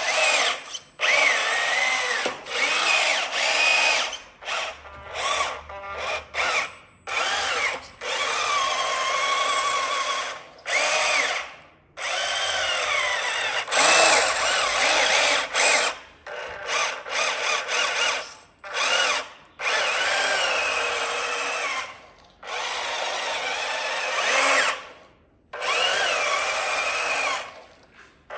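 Small electric motors of radio-controlled toy construction vehicles whining in repeated bursts, the pitch rising and falling as they speed up and slow down, with brief stops between runs.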